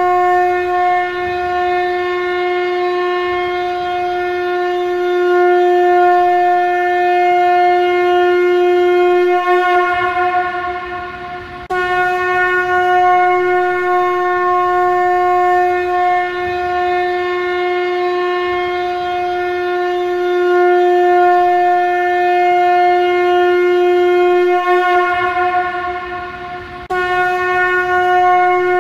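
Shankha conch shell blown as a trumpet in long, steady blasts on one pitch, rich in overtones. One blast fades out about ten seconds in, a new one starts abruptly about two seconds later, and it fades again near the end as another begins.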